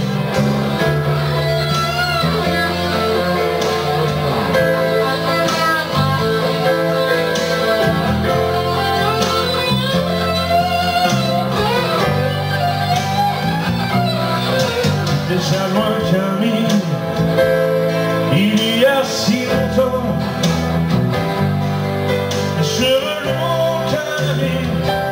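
A small live band playing a song: strummed acoustic guitar, electric guitar and keyboard.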